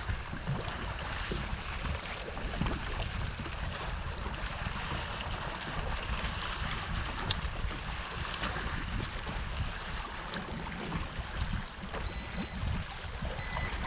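Wind on the microphone and water lapping against a boat's hull, with a low rumble and a steady hiss. Near the end, a faint high beep sounds twice.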